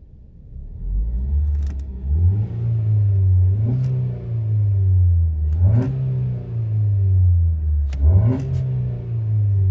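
Ford Focus engine with an aftermarket cold air intake, running under changing revs. The engine note slides gradually and then jumps sharply about three times, with a short click at each jump.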